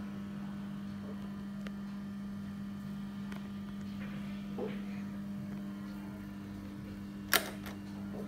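Pensonic electric stand fan running with a steady motor hum, and a single sharp click near the end.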